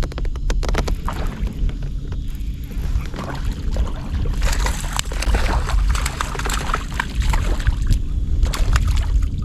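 Water splashing and sloshing beside a fishing kayak, with a steady low wind rumble on the microphone. There is a run of quick sharp clicks in the first second or so, and a busier stretch of splashing and clicking from about halfway through.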